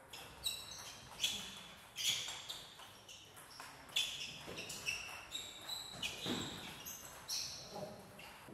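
Table tennis rally: the ball clicking sharply off rackets and table, about one hit every half second to a second, each with a short bright ring.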